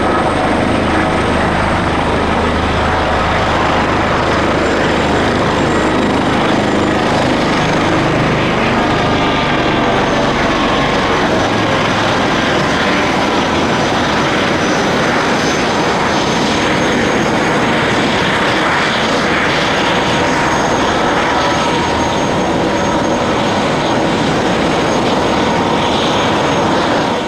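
Airbus H145 helicopter running on the ground with its rotor turning: a steady high turbine whine over loud rotor noise. A low rumble underneath fades out about ten seconds in.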